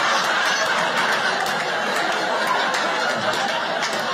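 Comedy-club audience laughing, a dense crowd laugh that holds steady.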